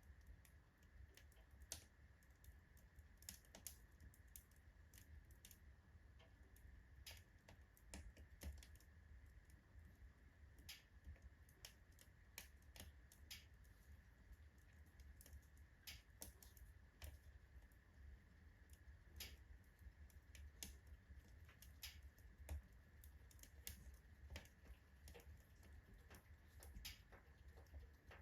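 Oak logs burning in a fireplace, crackling faintly with irregular sharp pops and ticks, over a low steady rumble.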